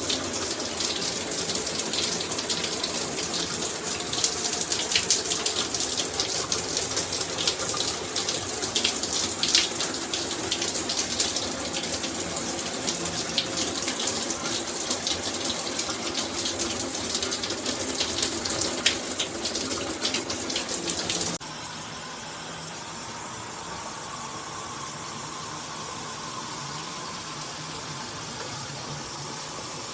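Shower head spraying water, a steady rush with splashing droplets. About two-thirds of the way through it drops suddenly to a quieter, smoother flow.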